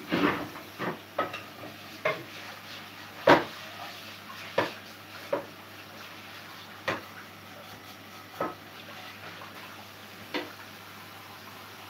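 Kitchenware being handled on the counter: a frying pan and utensils knocking and clinking, about ten separate knocks at irregular intervals, the loudest a little over three seconds in, over a steady faint hiss.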